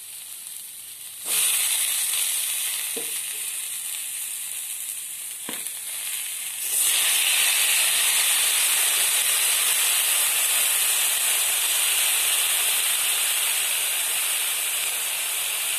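Potatoes and cut yardlong beans (borboti) frying in hot oil in a kadai, a steady sizzle. It jumps louder about a second in and again about halfway through, with a couple of light knocks between.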